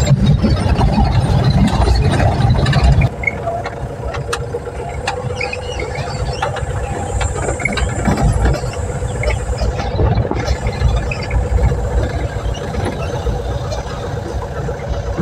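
Cabin noise inside a moving Mahindra Bolero: engine hum and road rumble with small rattles. The deep rumble drops off suddenly about three seconds in, leaving a steadier, lighter engine hum.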